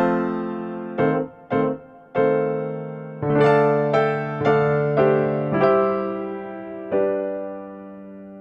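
Background music: slow, gentle piano playing single struck notes and held chords, the last chord slowly fading near the end.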